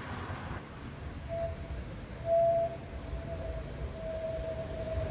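H0 model tram running along the layout's track: a low rumble with a steady high whine that comes and goes from about a second in, loudest briefly near the middle, then holds.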